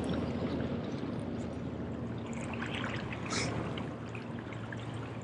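Seawater lapping and trickling against the boulders of a rock jetty, a steady wash of small waves.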